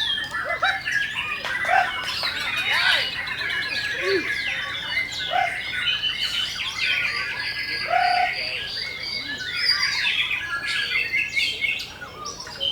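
Several white-rumped shamas singing at once: a dense, unbroken tangle of quick varied phrases and gliding whistles.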